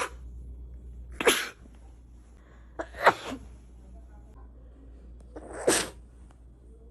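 A woman sneezing three times in a row, each sneeze a short sharp burst about two to two and a half seconds after the last.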